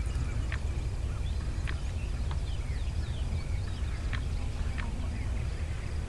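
Outdoor ambience: a steady low rumble of wind on the microphone, with scattered short bird chirps and whistles over it.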